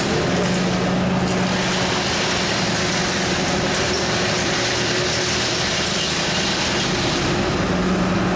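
Heavy diesel engine running steadily with a low hum, the power pack of a self-propelled modular transporter carrying a bridge deck.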